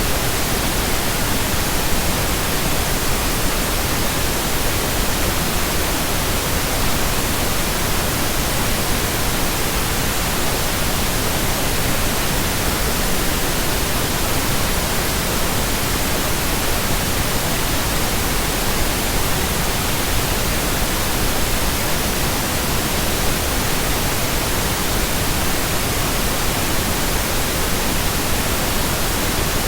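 Steady synthetic pink noise: an even, unbroken hiss with no change.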